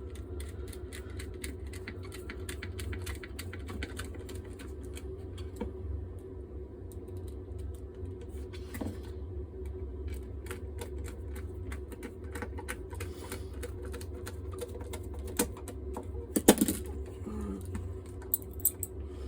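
Rapid small clicks and taps of plastic straightener parts being handled and fitted together, with a louder clack near the end, over a steady low hum.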